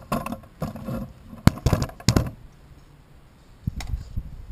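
Air filter housing cover of a 2015 Chevrolet Volt being worked into place by hand: sharp clicks, knocks and light scrapes of the hard plastic cover and its tabs and clips. Several come in the first two seconds, then a couple more near the end.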